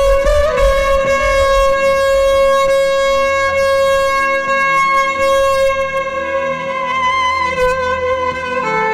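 Violin holding one long note for about eight seconds over a quieter backing of repeated low notes, then moving on to new notes near the end.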